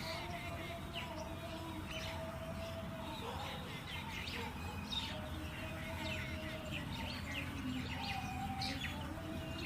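Small birds chirping repeatedly, many short calls one after another, over a steady low background rumble.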